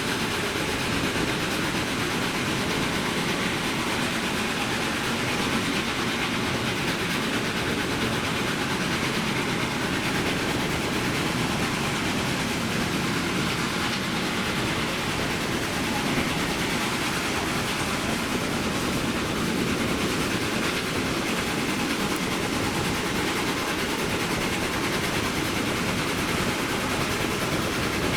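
Steam-hauled passenger train running steadily, with a constant rolling noise of wheels on rails.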